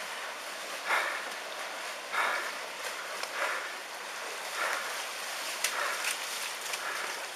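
Tsunami floodwater rushing along a narrow street, with a short splash about once a second from footsteps wading through it.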